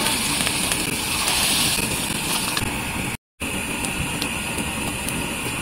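Battered fish roe deep-frying in hot oil in a metal wok: a steady sizzling hiss, broken by a short silent gap a little past three seconds in.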